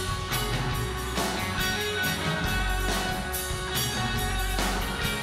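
Live rock band playing an instrumental passage between sung lines: guitars and electric bass over a steady drum beat.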